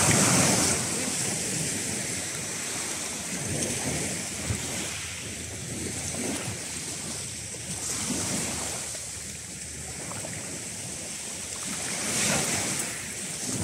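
Small sea waves breaking and washing over a shingle beach, with wind on the microphone. The surf surges loudest at the start and again near the end.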